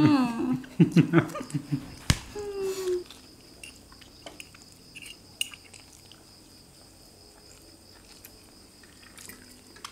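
Short wordless vocal sounds and a sharp click in the first three seconds. Then the room goes quiet except for faint, scattered clicks of people eating: raw vegetable shoots being handled and chewed. A faint steady high whine runs underneath.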